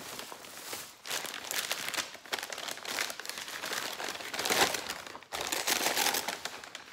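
White wrapping paper crinkling and rustling in the hands as an item is unwrapped from it. It comes in irregular crackly spells, with short lulls about a second in and again a little past five seconds.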